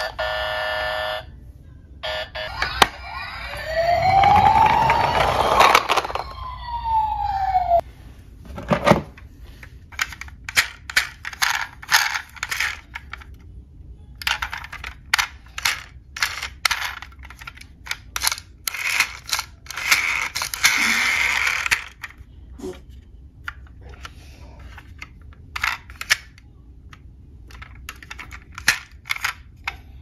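Toy police car's electronic siren wailing in rising and falling glides, cutting off about eight seconds in. Then scattered clicks and light clatter of diecast toy cars being handled in a cardboard box.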